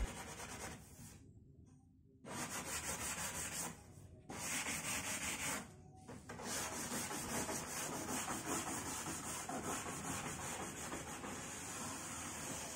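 Hand sanding along the freshly trimmed edge of HPL laminate on a cabinet frame with a round sanding pad, to take off the sharp edge left by the trimmer. Fast back-and-forth rubbing strokes in short runs, stopping briefly twice, then running steadily.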